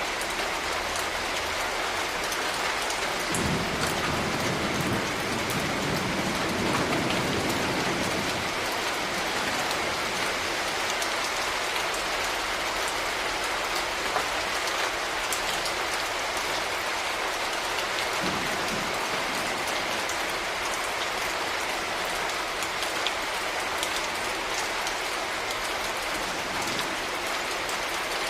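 Steady rain falling, with individual drops ticking sharply on a surface. A low rumble swells a few seconds in and fades again.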